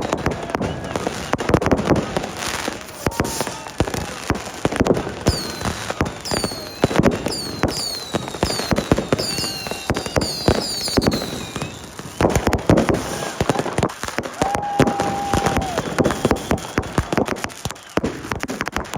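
New Year's Eve fireworks and firecrackers going off thick and fast: a continuous barrage of bangs and crackling, with a run of short falling whistles about five seconds in and one held whistle-like tone later on.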